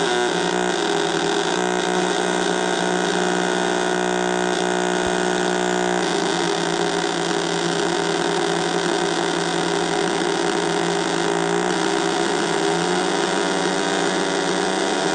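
Homemade 555-timer drone synthesizer: three square-wave oscillators sounding together as one dense, continuous drone, their pitches pushed up and down by three more 555 timers acting as low-frequency oscillators. The pitches and mix shift abruptly about six seconds in and again near the end as the knobs are turned.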